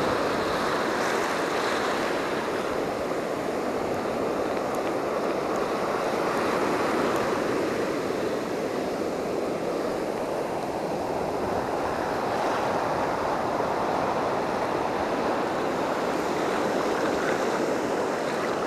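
Ocean surf breaking and washing up the beach: a steady rushing of foam and water around the shallows.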